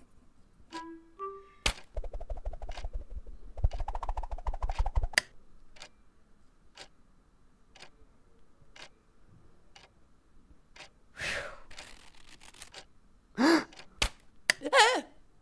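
A string of short sound effects. Two brief musical notes and a sharp click are followed by about three seconds of fast rattling, then light, evenly spaced ticks a little under two a second. After a brief rustling whoosh come two short cries that waver in pitch near the end, the first of them the loudest sound.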